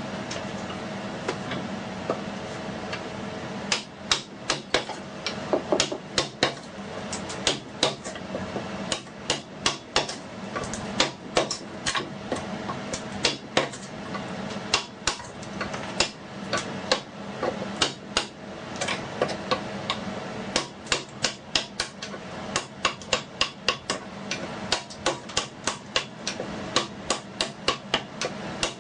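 Hammer striking a chisel again and again, chopping into wood: sharp blows come in quick runs of several strikes with short pauses, sparse in the first few seconds and steady from about four seconds in.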